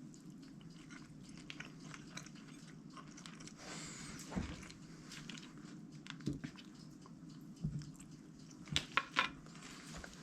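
A person biting and chewing crispy pan-fried fish. Soft crunching and mouth sounds, with a few sharp clicks near the end.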